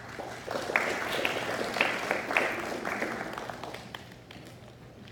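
Audience applauding: a burst of clapping that swells about half a second in and dies away by about four seconds.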